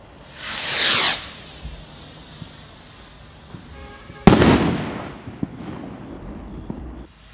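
Hallmark Sky Hunters firework rocket launching with a whoosh that falls in pitch. About three seconds later its shell bursts with a sharp bang, the loudest sound, followed by a fading tail and a few faint pops as the stars burn out.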